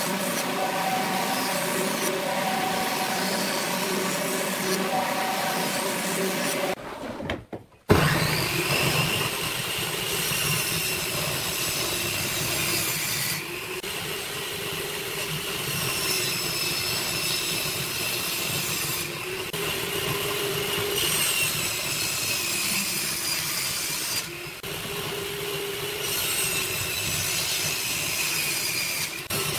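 A jointer running while a board is fed across its cutterhead, a steady machine hum with several held tones. About a quarter of the way in it cuts off, and a table saw takes over, running with a high whine while its blade cuts boards lengthwise, with brief dips every few seconds.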